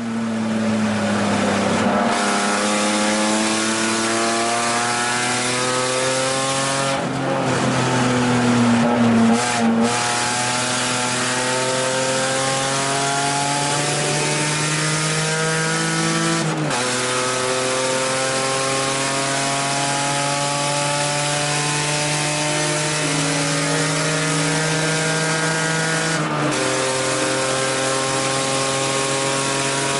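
A 1989 BMW 325i E30 race car's inline-six engine at full throttle, heard from inside the cabin. Its pitch climbs steadily and drops sharply at gear changes about 16 and 26 seconds in. Around 7 to 10 seconds in, the pitch swings up and down as the revs change quickly.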